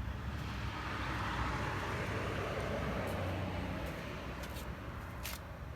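A vehicle passing on a nearby road: a steady rush of tyre and engine noise that swells about a second in and fades away over the following seconds.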